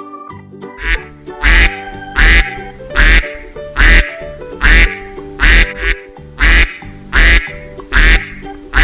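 Duck quacking loudly and repeatedly, about one quack every 0.8 s, starting about a second in, over background keyboard music.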